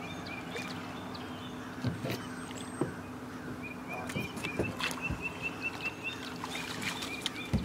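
Spinning reel being cranked as a hooked crappie is brought to the net, ticking fast and evenly, about five times a second, under a steady low hum. Scattered knocks and splashes come as the fish reaches the surface and is netted.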